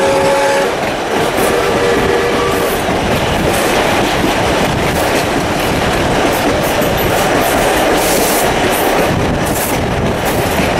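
Steam locomotive whistle: a blast that ends just after the start, then a second, lower-pitched blast lasting over a second. After that, the steady running noise and clatter of the steam-hauled carriages on the track, heard through an open carriage window.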